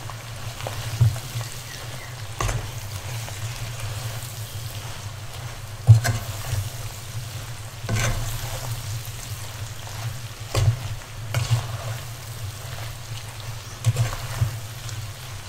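Prawn shells, garlic and dried shrimp sizzling as they are stir-fried in a pan, with a spatula scraping and knocking against the pan every few seconds; the loudest knock comes about six seconds in.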